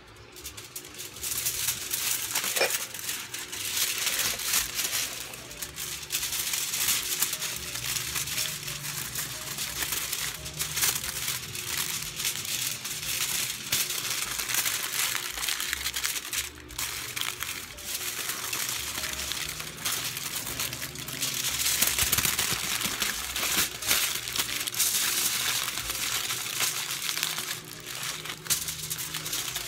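Aluminium foil crinkling and crackling in irregular bursts as hands fold and press it closed around a filling.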